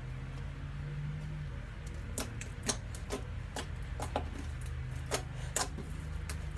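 Slime being squeezed and pressed by hand, giving a string of sharp clicking pops, about two a second from around two seconds in, over quiet low background music.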